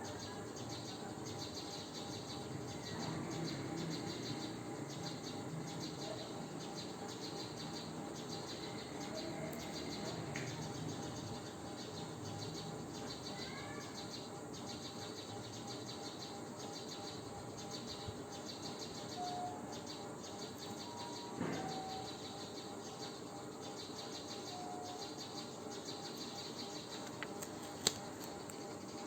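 Insects chirping steadily in a fast, even pulse over a low hiss, with a few short bird chirps, and a single sharp click near the end.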